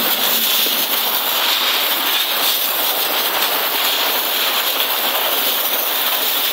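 Garden hose spraying a steady stream of water onto pavement, washing the water along the ground with a continuous even hiss.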